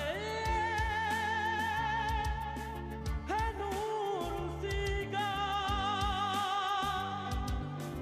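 A man singing into a microphone with instrumental backing, holding long ornamented notes with a wavy vibrato. The line breaks briefly about three seconds in before the next phrase.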